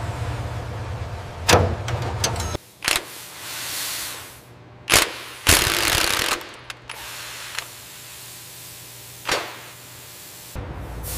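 Assembly-line sounds. A low machinery hum stops about two and a half seconds in. Several sharp metallic bangs follow at irregular intervals, with a loud burst from a handheld fastening tool at the bolt near the middle.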